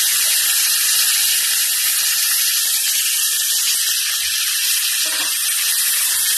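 Raw pork pieces sizzling in a frying pan of sautéed garlic, onion and tomato just after being added: a steady hiss without breaks.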